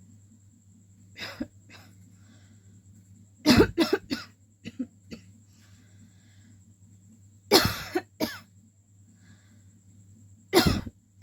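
A woman coughing in separate bouts, deliberate coughs made on purpose: a single cough about a second in, a hard run of three or four coughs around three and a half seconds, a couple of lighter ones after it, then two more strong bouts near eight seconds and near the end.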